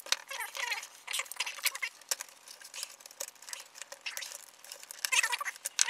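Plastic parts of a smoke detector's housing clicking and squeaking as it is handled and unscrewed with a screwdriver: an irregular series of quick clicks and short squeaks.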